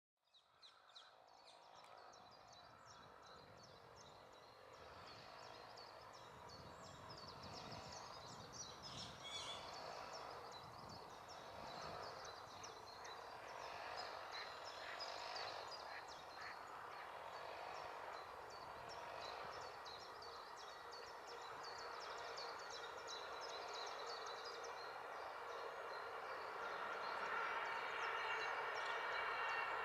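Many small birds chirping over a steady background of traffic noise that grows louder toward the end.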